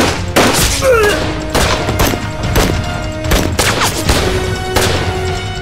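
Film-soundtrack pistol gunfire: a steady series of sharp shots, about two a second, over dramatic background music.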